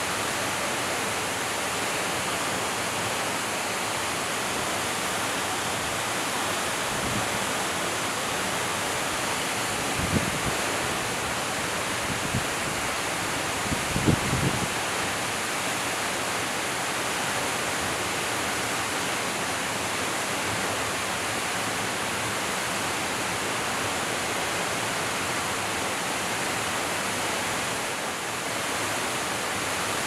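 Waterfall pouring into a rock pool: a steady, even rush of falling water. A few brief low thumps stand out about ten and fourteen seconds in.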